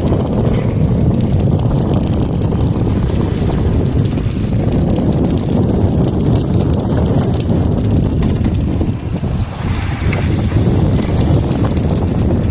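Wind buffeting the microphone aboard a sailboat at sea, a steady low rumble.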